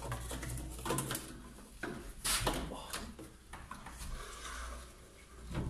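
A hand siphon pump and its plastic hoses being handled and worked to draw old petrol out of a car's fuel tank. A few irregular knocks and plastic rustles come about a second apart in the first three seconds, over a steady low hum.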